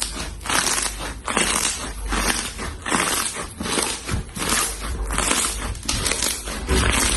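Slime being squeezed and pressed by hand, a crackly, squishy sound repeating about twice a second.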